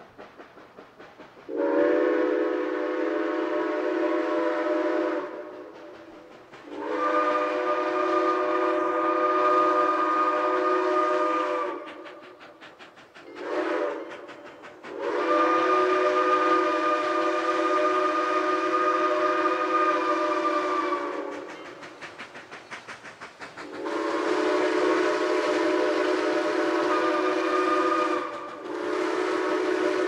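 Southern Railway 4501's Central of Georgia six-chime steam whistle blowing a series of long blasts with one short toot between them. Between blasts the rhythmic exhaust beats of the working steam locomotive can be heard.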